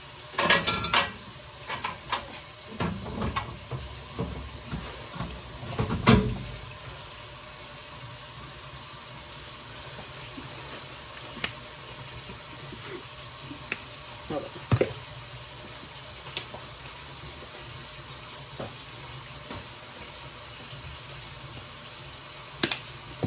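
Kitchen tap running in a steady hiss, with a flurry of knocks and clatter in the first few seconds and single clicks after.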